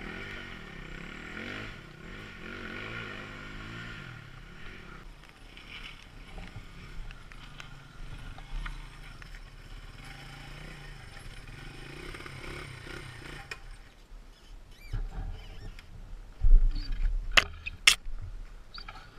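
Dirt bike engine revving up and down as the bike claws up a rocky ledge. Near the end come several loud knocks as the bike tips over onto the rocks.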